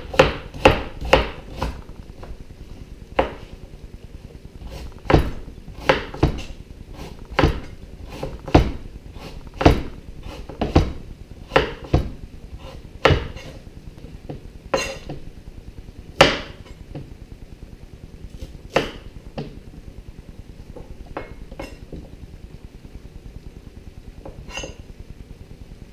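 Knife chopping sweet potato into chips on a cutting board: sharp single chops, about two a second at first, then roughly one a second, growing sparse in the second half.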